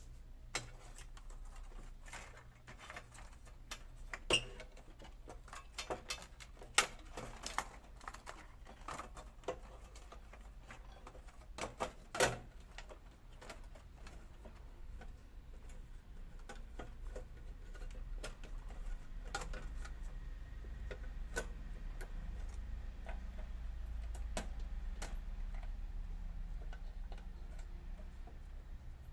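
Scattered clicks and light knocks of hi-fi unit parts being handled and fitted together during reassembly, loudest about twelve seconds in. A low hum grows louder in the second half.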